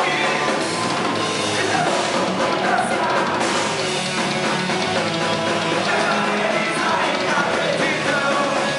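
Live hardcore punk band playing loud and fast: distorted electric guitars, bass and a drum kit, heard through a concert PA and recorded from the crowd.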